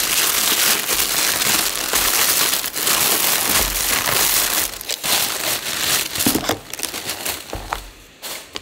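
Plastic packaging crinkling and crumpling as it is handled, dense at first and breaking into separate crackles after about five seconds.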